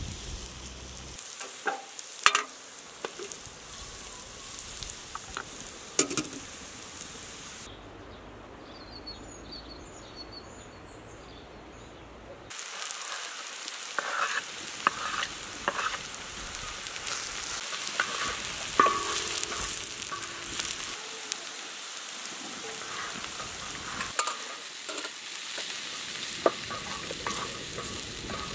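Chopped onions sizzling in oil on a sadj, a wide iron griddle over a wood fire, with sharp scrapes and knocks of a wooden spatula on the metal as garlic is stirred in. The sizzle drops away for a few seconds in the middle, then comes back louder.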